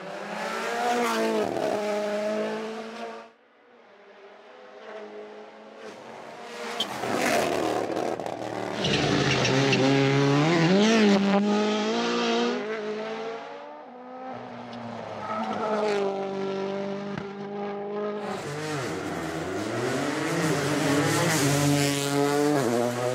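Rally car engines revving hard, pitch climbing and dropping through gear changes, in several separate passes, with a sudden cut a few seconds in.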